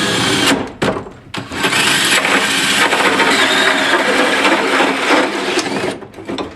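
Power drill boring the hole for the sink drain, running in two spells: a short one that stops about half a second in, then a longer one of about four and a half seconds, its whine rising and falling as it cuts.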